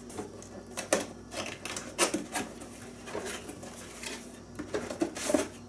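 A cardboard box being opened and its packaging handled: irregular rustles, scrapes and sharp clicks.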